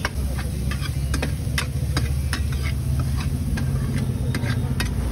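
Long steel ladle stirring and scraping chopped vegetables frying in a steel kadhai, with irregular sharp clinks of ladle on pan and light sizzling, over a steady low rumble.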